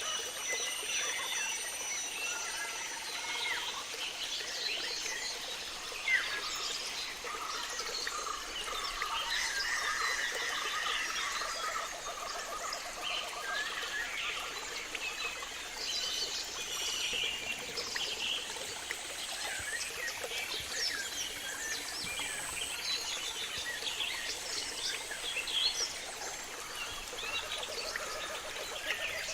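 Tropical rainforest chorus: many birds chirping and whistling over one another, with frogs calling in rapid pulsed trains and a steady high thin tone underneath. A single sharp click stands out about six seconds in.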